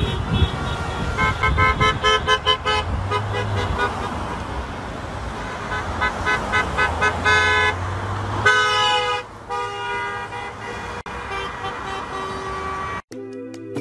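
Many car horns honking in passing traffic, short toots and longer blasts following one another and overlapping, over the low steady hum of the moving car.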